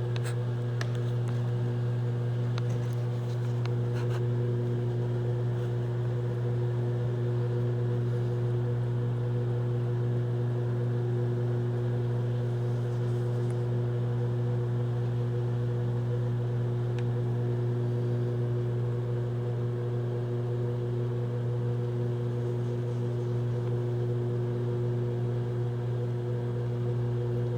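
Microwave oven running with a steady low hum that does not change.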